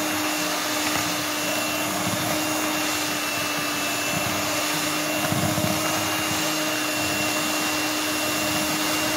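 Electric hand mixer running steadily at low speed, its beaters whirring through a batter of eggs, sugar and ovalet in a plastic bowl, with a constant motor hum.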